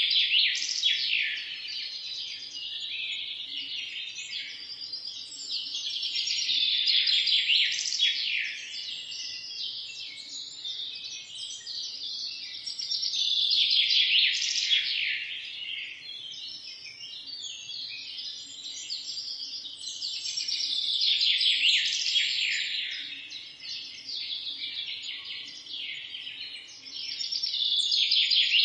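Many small birds chirping together in a dense chorus, swelling louder and fading back about every seven seconds.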